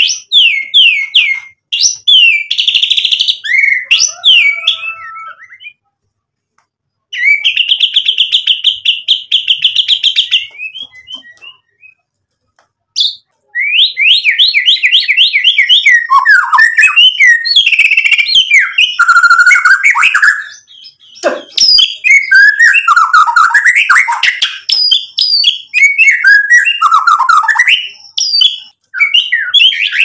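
Male white-rumped shama singing loudly: bursts of fast repeated whistled notes and a buzzy rattling trill, broken by two short pauses. From about halfway through it runs on almost without a break in a varied stream of whistles, slurs and chatters.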